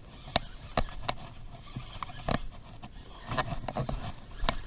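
Irregular sharp clicks and knocks of fishing gear being handled on a kayak while fighting a hooked fish.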